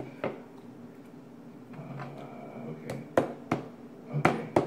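Metal spoon tapping on an upside-down plastic bowl with a lid, a toddler drumming: irregular sharp taps, about half a dozen, most of them in the second half.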